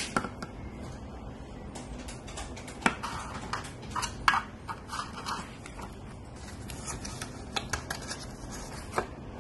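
Handling noise from a silicone-strap fitness band and its tracker on a desk: scattered light clicks and taps over a steady hiss, with the sharpest clicks about three and four seconds in.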